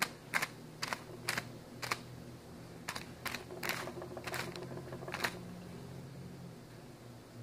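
A pigeon pecking at popcorn inside a plastic bag: about nine sharp taps, some with a crackle of plastic, spread over the first five seconds or so, then they stop.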